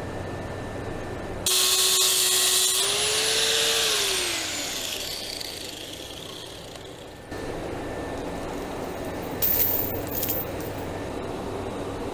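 Electric angle grinder cutting through a link of steel chain: a loud, harsh grinding over a steady motor note for about a second, then the motor's pitch rises briefly as the disc comes free and winds down after the switch is let go. A few short clinks follow near the end.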